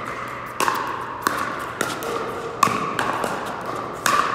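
Pickleball paddles hitting the hollow plastic ball in a quick volley exchange: five or six sharp pops, each with a short ring, roughly half a second to a second apart. The loudest is a little past halfway.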